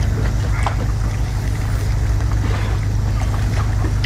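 Steady low engine-like rumble throughout, with scattered small clicks and crackles of crab shells being picked apart and eaten.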